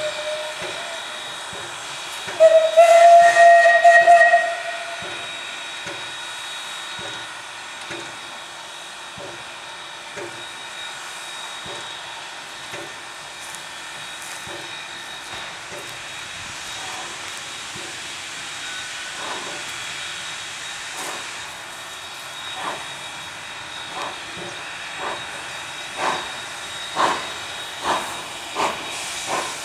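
Two double-headed ČSD class 475.1 steam locomotives starting a train away: a steam whistle blows loudly for about two seconds near the start, followed by a steady hiss of steam. From about two-thirds of the way through, the exhaust chuffs of the locomotives pulling away begin, growing louder and coming about once a second by the end.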